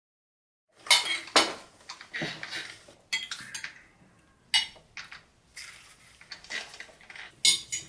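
Metal cutlery clinking and scraping against dishes: a string of sharp separate clinks with a short ring, starting about a second in, the loudest two close together near the start.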